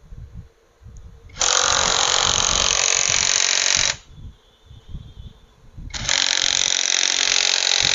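A workshop tool runs in two loud hissing bursts, each two and a half to three seconds long, starting and stopping abruptly.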